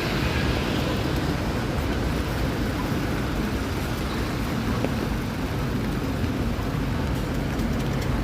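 City street traffic: a steady wash of passing vehicles and road noise.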